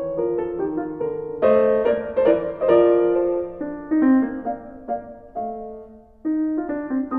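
Background piano music: unhurried notes and chords, each struck and left to fade.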